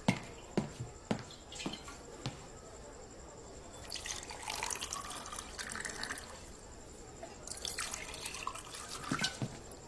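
Water poured into drinking glasses at a table, with a few sharp clinks of glassware in the first couple of seconds and a longer pour from about four seconds in.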